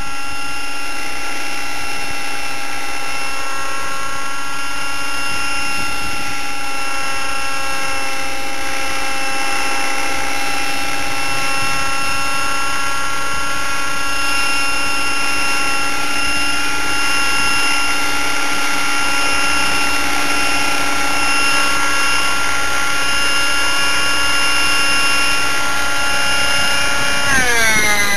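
T-Rex 600 Nitro Pro radio-controlled helicopter in flight, its OS 50 Hyper two-stroke glow engine with a Hatori performance muffler running steadily at a high, even pitch. Near the end the sound gets a little louder and its pitch drops sharply.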